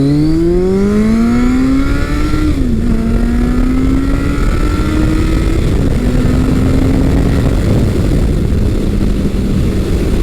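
Kawasaki ZRX1200R's inline-four engine through an ART Pro Series II slip-on exhaust, accelerating up through the gears: the revs climb, fall at a gear change, climb again and fall at a second shift, then settle to a steadier note. Heavy wind noise on the helmet microphone runs under it.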